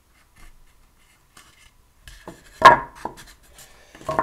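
Handling of a model locomotive in its polystyrene packaging block: faint rubbing and scraping as it is pushed out, then a sharp knock about halfway through followed by several quick clicks, and another knock near the end.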